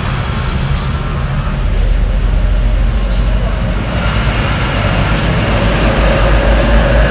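Steady low rumble of motor traffic, growing louder about two seconds in, with a steady hum added from about four seconds.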